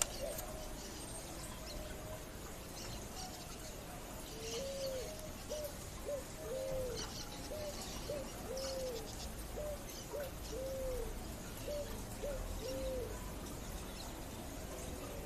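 Picazuro pigeon singing: a series of low coos in a repeated phrase, a longer arched coo followed by two short ones, running from about four seconds in to about thirteen seconds. Faint high chirps of other birds sound in the background.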